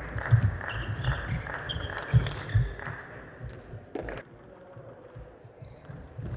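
Table tennis rally: the celluloid-type ball clicking quickly off bats and table, with players' footsteps thudding on the court floor, ending about three seconds in. A single ball bounce follows about a second later.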